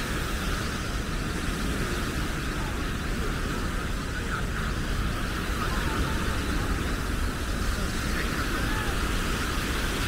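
Steady outdoor beach ambience: wind buffeting the microphone and surf washing on the shore, with faint distant voices.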